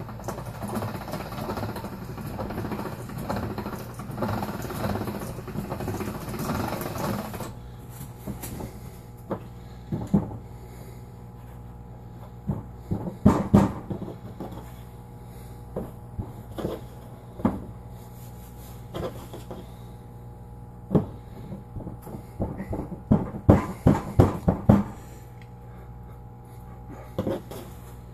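Hand-cranked pasta machine rattling as dough is rolled through it, stopping after about seven seconds. This is followed by scattered knocks and taps, in a few quick clusters, as the dough and the machine are handled on the countertop.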